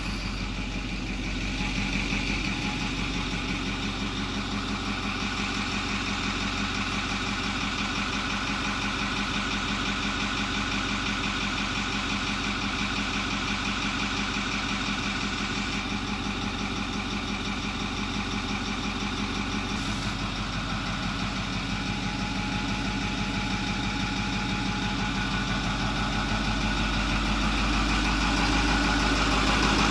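Ford 6.4 L Power Stroke V8 turbo diesel idling steadily, now running and staying lit after a new electric diesel fuel pump was fitted and the fuel system bled. It gets a little louder over the last few seconds.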